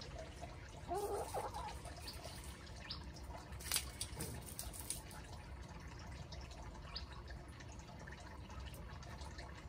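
Chicken foraging in dry leaf litter, with scattered light ticks and rustles over a steady low rumble. A short call rises and falls about a second in, and there is a sharp click just before the four-second mark.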